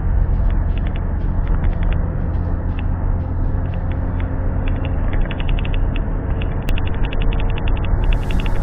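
Vehicle running with a steady low rumble, overlaid with short rattling clicks that come in rapid clusters in the second half.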